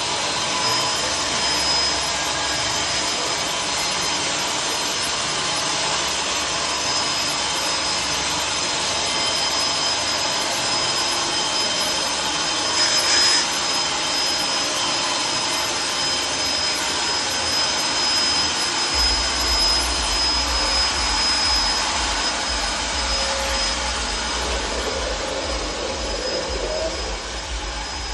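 Mobile sawmill running: steady machine noise with a constant high whine, swelling briefly about halfway through, with a low hum joining in the second half.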